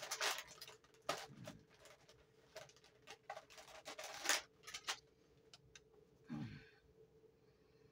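Scattered light clicks and taps of cured resin coasters and silicone coaster molds being handled on a plastic-covered work table, followed by a single low thump about six seconds in as a square silicone mold is picked up.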